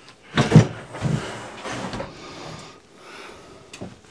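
Wooden countertop knocking and scraping against the base cabinets as it is pried up and lifted off, with one loud knock about half a second in and rougher scraping for the next second or so.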